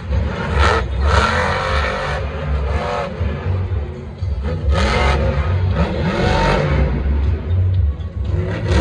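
Monster truck's supercharged V8 engine revving hard in repeated surges, its pitch rising and falling as the truck drives the dirt floor and hits a jump. Music plays behind it.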